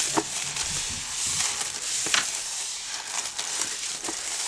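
Honeycomb kraft-paper packing wrap crinkling and rustling as it is pulled apart and unfolded by hand, with a few sharp crackles.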